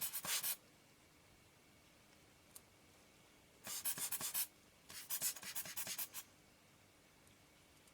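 Three short bursts of hissy, scratchy noise as dust is cleared from a lens element: one at the very start, then two more about four and five seconds in, each up to about a second long.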